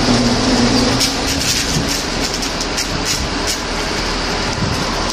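High-voltage electric arc at the top of a power pole, drawn during a hot-stick operation on the line: a loud steady buzzing hum with harsh noise, the hum fading about a second and a half in, followed by a string of sharp crackles and pops.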